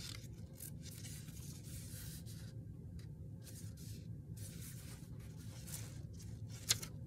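Pages of a paper memo pad being flipped and bent by hand, a scattered soft rustling with a sharp click near the end, over a steady low hum.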